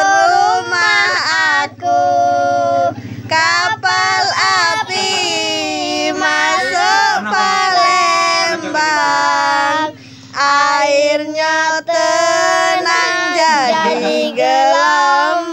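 A song sung in a high, child-like voice: long wavering notes, with short breaks about two seconds and ten seconds in.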